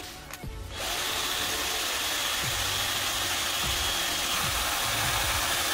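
A power tool running steadily for about six seconds, starting about a second in, with a strong hissing sound. Background music plays underneath.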